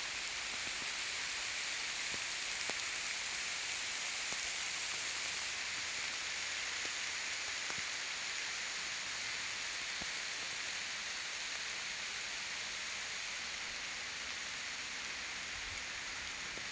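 Steady rain falling on the oil palms and undergrowth: an even hiss with a few faint drop ticks.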